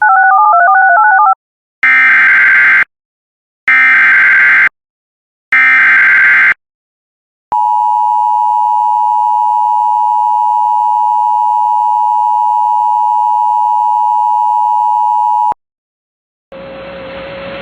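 Emergency Alert System broadcast tones. A brief warble of two alternating notes comes first, then three one-second bursts of SAME digital header data, then the EAS attention signal: a steady two-note tone held for about eight seconds. A hiss starts near the end.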